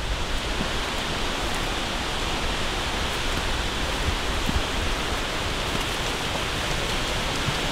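Steady, even hiss with a low rumble underneath, unchanging throughout.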